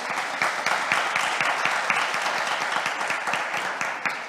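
Audience applauding, with many hands clapping at once.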